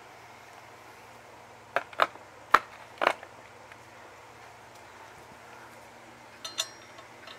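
Metal hand tools being handled: four sharp clinks and knocks about two seconds in, then a brief metallic clatter with a short ringing note near the end.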